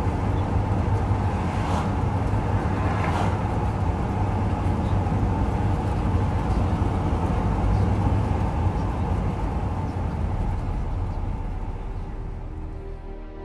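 Steady road noise from inside a moving vehicle: low engine and tyre rumble at highway speed, with two brief rushes about two and three seconds in. The noise fades down near the end.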